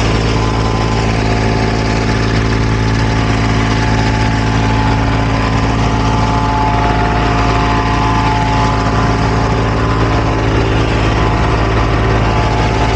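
Engine of asphalt paving machinery running steadily at a constant speed: a continuous low hum with several steady tones above it.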